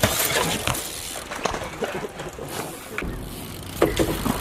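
BMX bike being ridden, its tyres and frame giving a noisy rush with several sharp knocks and clatters.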